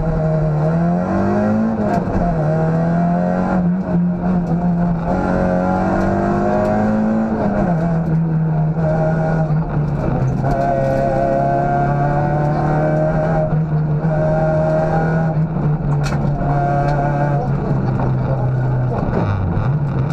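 Citroën Saxo rally car's engine heard from inside the cockpit, driven hard along a stage. The revs climb and drop sharply at gear changes about two seconds and about eight seconds in, then hold fairly steady.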